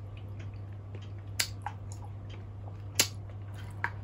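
Eating sounds from a 98-year-old man eating curry: chewing with scattered small mouth clicks and smacks. Two sharp clicks stand out, about a second and a half apart. A steady low hum runs underneath.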